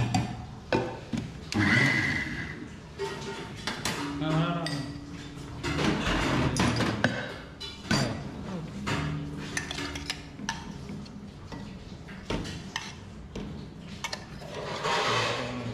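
Metal spoon scraping and clinking against the inside of a stainless-steel mixer-grinder jar, scooping out freshly ground chutney, with irregular knocks and clinks throughout.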